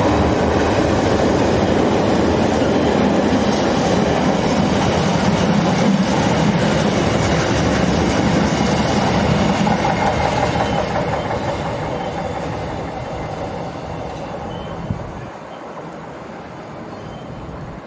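Intermodal container freight train rolling past, its wagon wheels rumbling and clacking over the rails, then fading away over the last several seconds. A single short click sounds near the end.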